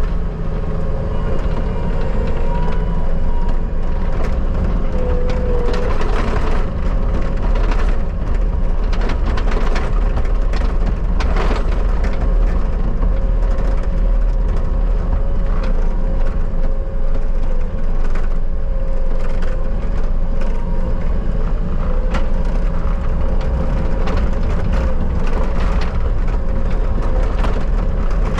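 Bobcat skid steer running steadily under load with a constant high hydraulic whine, while its grapple crushes and snaps brush and old pumpkins, giving repeated cracking and crunching.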